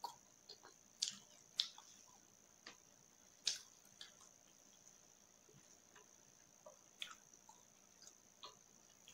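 Fingers mixing rice and curry on a plastic plate: scattered soft, wet squishes and sharp little clicks, a few of them louder.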